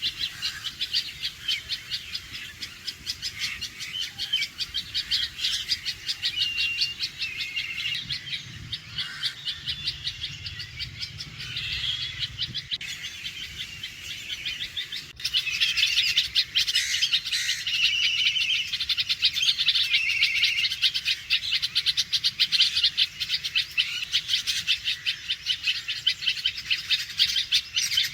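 Red-vented bulbul alarm calls: a rapid run of sharp, repeated notes with a few short whistled notes mixed in, louder from about halfway through.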